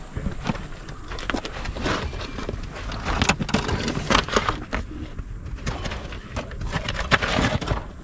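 Scraping and scuffing of a person crawling on their belly through a narrow, dusty rock crawlway: clothes and shoes rubbing and knocking irregularly against dirt and stone.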